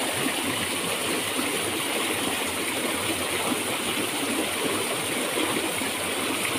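Steady rush of a small mountain stream running fast over rocks, mixed with the spray of water jetting from a leaking joint in a PVC pipe above it.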